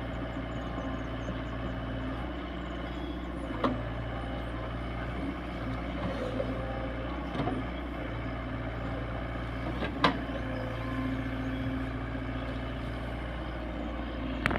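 SDLG excavator's diesel engine running steadily while it digs wet mud, with a few sharp knocks from the working arm and bucket, the loudest about ten seconds in.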